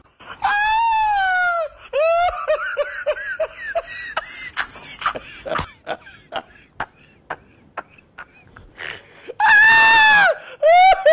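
A person screaming in long, high-pitched wails, one at the start and a louder one near the end, with short choppy cries and scattered knocks and scuffs between them.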